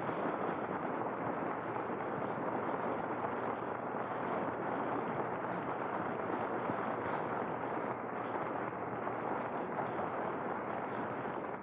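Radio-drama sound effect: a steady rushing noise standing for the stricken plane going down with both engines dead, fading away near the end.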